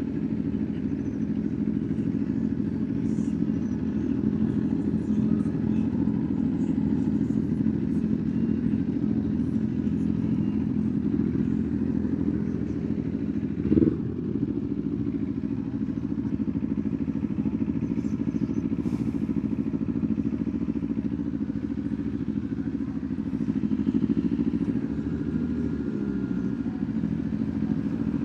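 Kawasaki Ninja 500's parallel-twin engine running at low, steady revs, with one short louder blip about halfway through.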